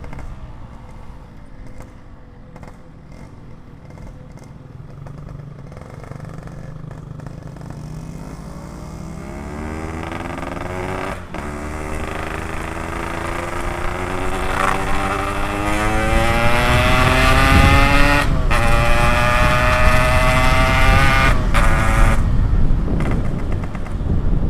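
Yamaha RX-King two-stroke single-cylinder motorcycle with a PK3 aftermarket exhaust, pulling away and accelerating. The engine note rises in pitch and grows louder, broken three times by brief cuts at the gear changes.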